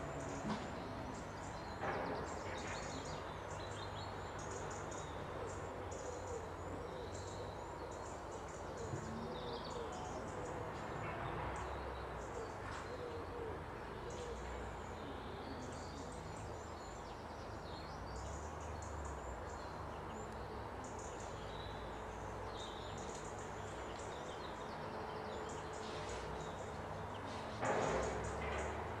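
Wild songbirds chirping and singing in many short, high notes, with a steady low hum underneath and a brief louder noise near the end.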